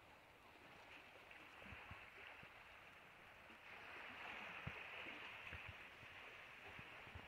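Near silence: a faint, steady hiss that swells a little in the middle, with a few soft low thumps.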